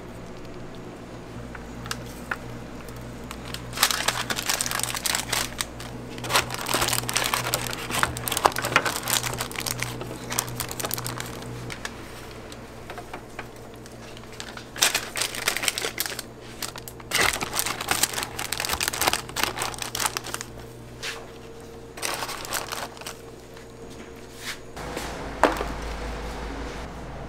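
Paper burger wrappers crinkling in several bursts as gloved hands wrap burgers, over a steady low hum.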